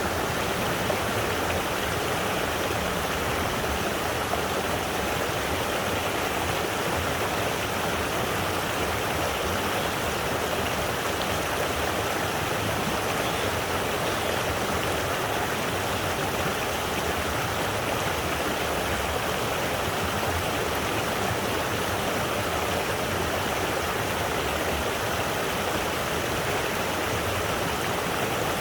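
Rushing water of a waterfall, a steady unbroken rush that cuts in suddenly at the start.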